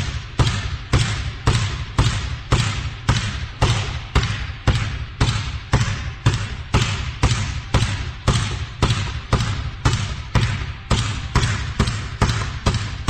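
A basketball being dribbled at a steady pace, about two bounces a second, each bounce a sharp thump that dies away quickly.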